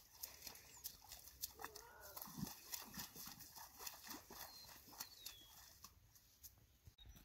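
Faint hoofbeats of a sorrel Quarter Pony mare walking on a wet dirt road, a loose string of soft clicks that fade as she moves away.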